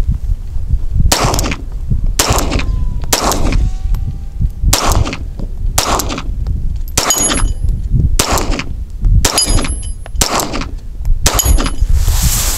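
Ruger Mark IV 22/45 pistol firing Federal Red Box .22 LR 36-grain rounds in slow, steady single shots, about ten at roughly one a second. A few of the shots are followed by a brief metallic ring from the steel target being hit.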